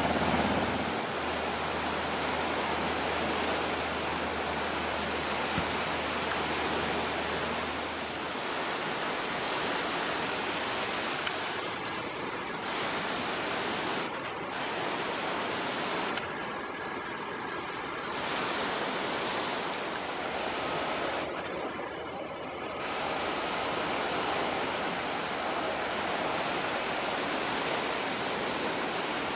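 Steady rushing roar of aircraft turbine engines. A low hum underneath drops out about eight seconds in.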